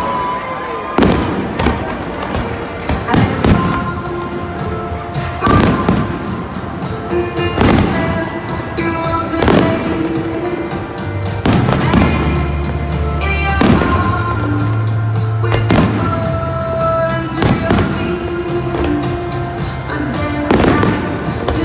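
Aerial fireworks bursting with sharp bangs about once a second, each followed by a short echo, over music with a steady bass line that comes in more strongly about halfway through.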